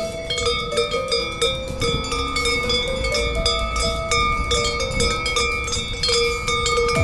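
Cowbells on grazing cows, clanking at irregular intervals, with the tones of several bells ringing on between strikes. A low rumble runs underneath.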